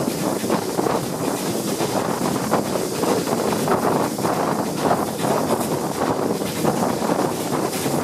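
Heavy wind noise buffeting the microphone out of a moving steam train's carriage window, over the steady rush and rumble of the train running.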